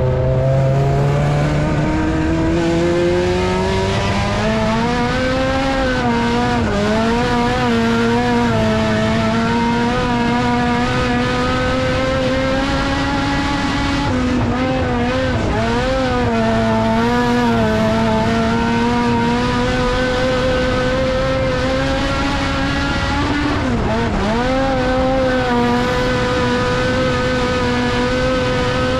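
In-car sound of a dirt-track race car's engine on a qualifying run. It climbs in pitch over the first few seconds as the car accelerates, then holds high and steady, with a few brief dips in the middle and once near the end as the throttle is eased for the corners.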